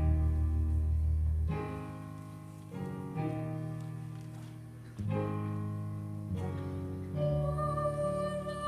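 Pit orchestra playing slow, held chords, the bass note changing every second or two. The chords soften in the middle, and a steady melody line enters about seven seconds in.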